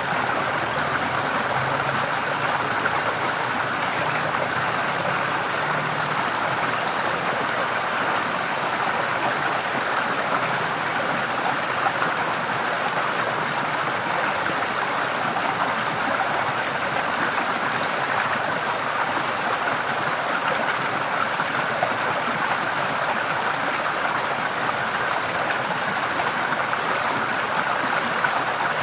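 Forest stream running steadily, an even rush of flowing water.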